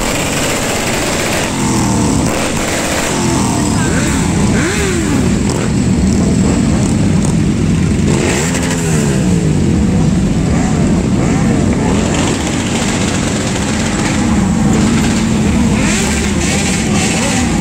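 A column of motorcycles running and revving, several engines at once, their pitches rising and falling over and over as bikes accelerate and pass.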